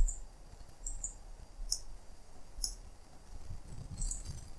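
Computer mouse buttons clicking, about half a dozen short, sharp clicks spaced irregularly.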